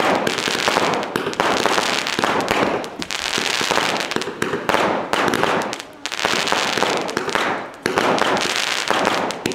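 Fireworks going off in quick succession: rockets bursting with sharp bangs and dense crackling. The loud surges come every second or two.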